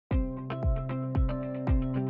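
Intro music with a steady beat about twice a second over held chords, starting suddenly at the very beginning.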